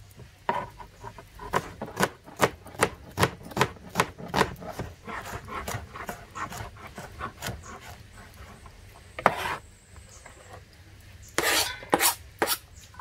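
Knife cutting food into small pieces on a board: a run of short, sharp strokes, about two a second. There is a pause about two thirds of the way through, then a few louder strokes near the end.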